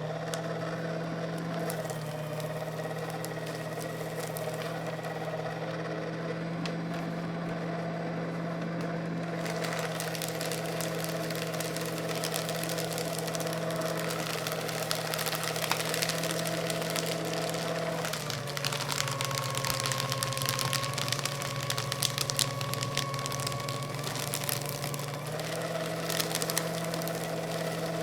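Electric paper shredder running with a steady motor hum. From about a third of the way in, the paper crackles and rustles densely as it is cut. For several seconds past the middle, the motor's pitch dips slightly, then comes back up.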